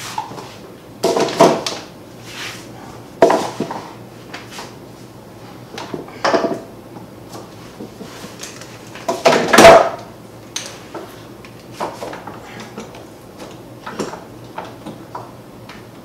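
Metal bar clamps being handled and set across a glued-up wooden tray. The clamp bars and jaws clatter and slide in a few loud bursts, the loudest about nine to ten seconds in, with lighter clicks and knocks between, over a faint steady hum.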